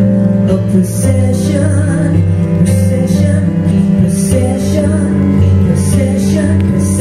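Live music: a woman singing over a Roland keyboard that holds long, sustained low notes.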